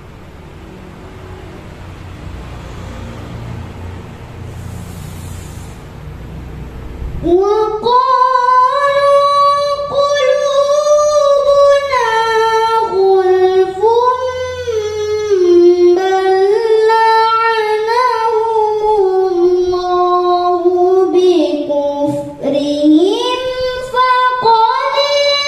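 A young girl's voice reciting the Quran through a microphone in the Hijaz maqam (tilawah), coming in about seven seconds in with long held notes that glide and turn, with a short break for breath near the end. Before she begins, only a low hum.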